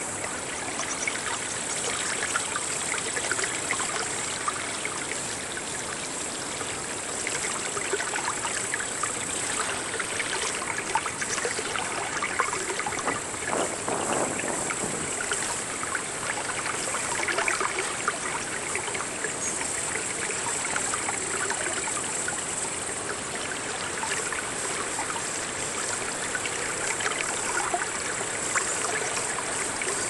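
Water pouring steadily from a stone fountain's spout and splashing into its trough.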